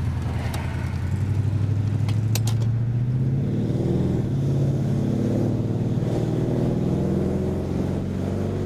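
Holden 308 V8 in a Series 2 Jaguar pulling in first gear, its engine note rising over the first few seconds, then holding steady. A few sharp clicks sound in the first two seconds or so.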